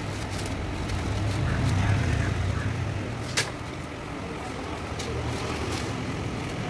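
A steady low mechanical rumble, slightly louder about two seconds in, with a single sharp click about halfway through.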